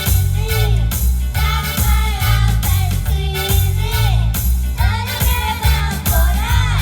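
Young singers of a children's vocal group singing a song over music with a steady beat.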